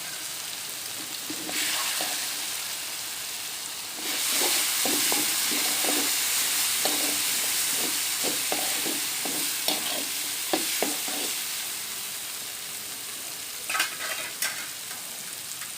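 Onions and ginger-garlic paste frying in oil in a pan with freshly added spice powders, a steady sizzle that grows louder about four seconds in. A spoon stirs and scrapes the pan in a run of quick strokes through the middle, with a couple of sharp clinks near the end.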